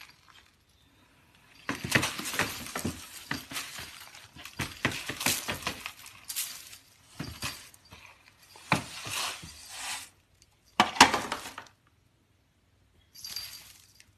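Loose granular cat litter rattling into a plastic litter box, in irregular gritty bursts, with the loudest, sharpest burst about eleven seconds in.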